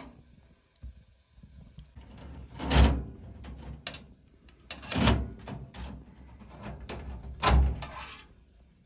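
Metal parts of a wood stove being handled: three loud sliding clunks about two and a half seconds apart, with light clicks between.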